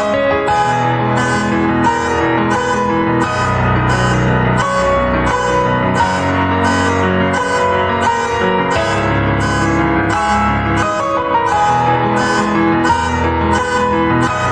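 Piano playing chords and a melody in time with a repeating car alarm, whose regular pulse comes a little under twice a second.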